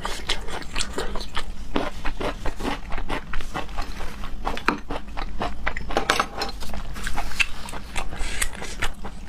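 Close-miked eating sounds of raw seafood being chewed: many irregular short, wet mouth clicks.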